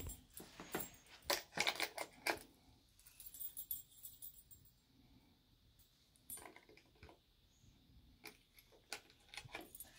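Small clicks, taps and rattles of a wooden toy house's latches and doors being worked by hand, in clusters at the start and again in the last few seconds, with quieter stretches between.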